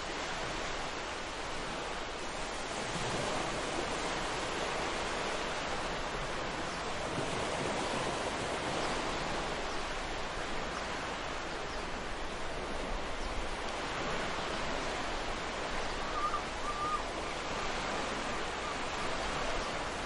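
Ocean waves washing onto a beach in a steady rush of surf, with a short high chirp about three-quarters of the way through.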